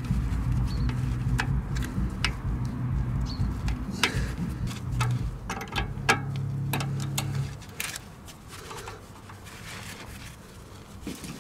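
Worm-drive hose clamp on an exhaust repair bandage being tightened with hand tools: scattered, irregular metal clicks and scrapes. A steady low hum underneath stops about two-thirds of the way through.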